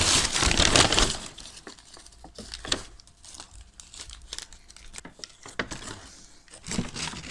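A plastic carrier bag and a paper sandwich wrapper rustle and crinkle as they are handled and unwrapped. Loud crinkling in the first second gives way to scattered, quieter crackles and ticks.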